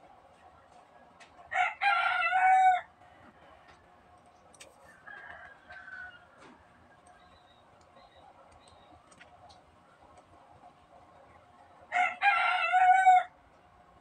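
A rooster crowing twice, each crow about a second long, the second about ten seconds after the first.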